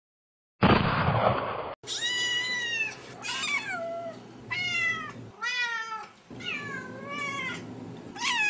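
A loud burst of gunfire lasting about a second, then a cat meowing repeatedly, about six drawn-out meows with short gaps between them.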